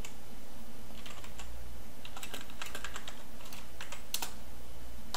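Computer keyboard keys clicking in quick, irregular runs as a search phrase is typed, over a steady low hum.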